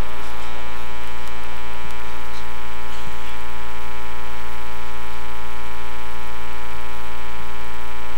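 Loud, steady electrical mains hum with a buzzing edge from the public-address sound system, holding at one pitch.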